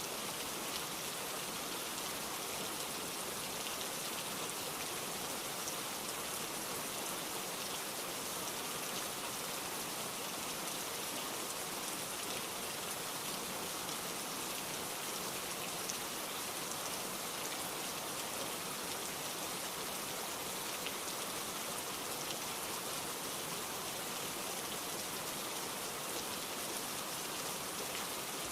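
Steady heavy rain, a dense even patter of drops falling on surfaces, with no let-up.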